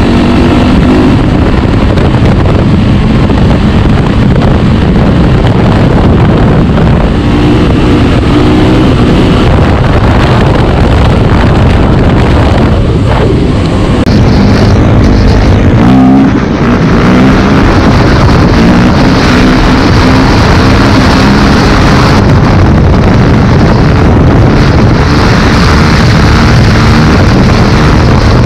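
Four-stroke single-cylinder motocross bike engines running and revving at speed, with wind buffeting the microphone: first a Yamaha YZ450F, then, after a change partway through, a KTM 350 SX-F.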